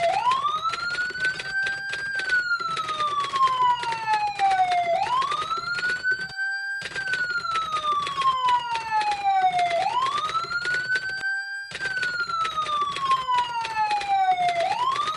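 Police siren wailing in slow cycles: the pitch rises over about two seconds, then falls more slowly, about three times over, with crackling static laid over it that drops out briefly twice.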